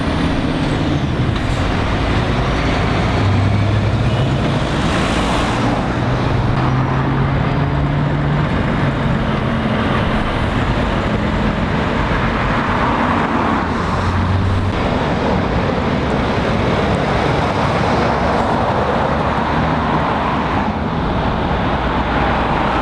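Road traffic at a roundabout: heavy lorries and cars passing close by, with the low drone of lorry diesel engines pulling round and steady tyre noise. There is a short hiss about five seconds in.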